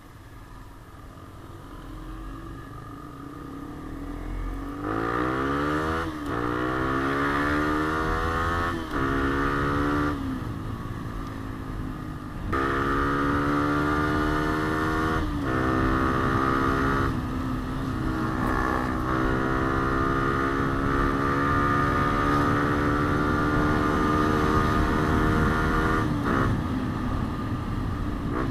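Yamaha Sniper 150's single-cylinder four-stroke engine pulling hard under load, its pitch climbing and then dropping sharply at each of several gear changes, then running steadily at speed before easing off near the end.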